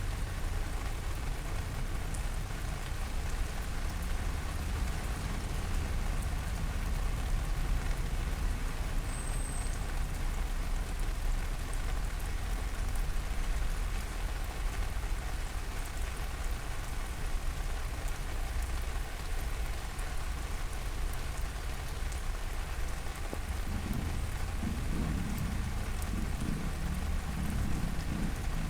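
Steady heavy rain falling on surfaces, with a constant low rumble underneath. Near the end a lower engine-like rumble grows louder.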